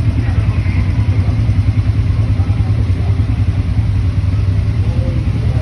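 ATV (quad bike) engine running with a steady low rumble.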